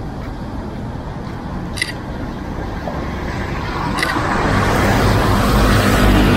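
Steady road traffic, one vehicle coming closer and getting louder over the last couple of seconds. Two short camera shutter clicks, about 2 seconds in and again about 4 seconds in.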